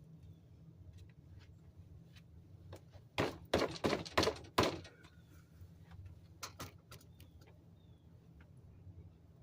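A quick run of about five heavy knocks over a second and a half, then two lighter knocks. Under them runs the steady low drone of a grocery-store exhaust vent.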